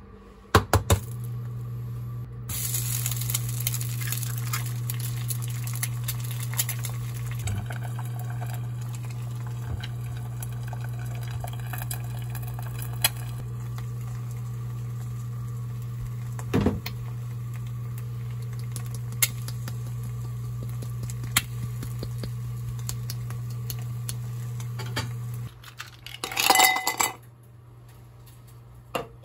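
Eggs frying under a glass lid: a steady sizzle with scattered pops and a steady low hum, starting about two and a half seconds in and stopping abruptly near the end. Just after, ice cubes clink loudly into a glass mug.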